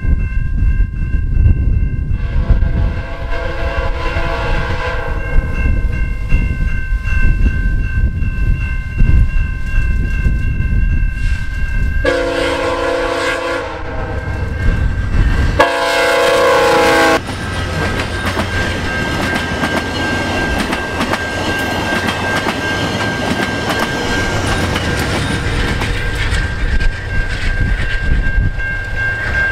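VIA Rail passenger train led by a GE Genesis P42DC diesel locomotive approaching and passing, with a steady low rumble. Its horn sounds three times: one long blast a couple of seconds in, then two louder blasts a little before and after the halfway point. The rumble and clatter of the passenger cars going by follows.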